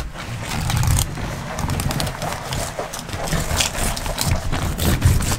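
Fillet knife cutting along a steelhead's backbone, with a steady run of small crackles as it slices through the rib bones, over an uneven low rumble.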